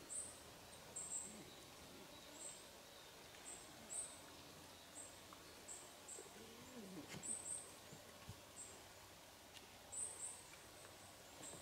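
Quiet forest ambience with a small bird repeating short, high-pitched chirps every half second to a second, sometimes in quick pairs. A few faint clicks and a faint lower call come in around the middle.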